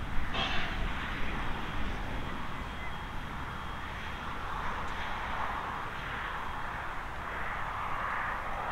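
Steady hiss of steam over a low rumble from steam locomotive W934.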